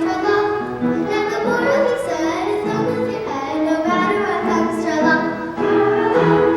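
Children's choir singing a song from a children's musical.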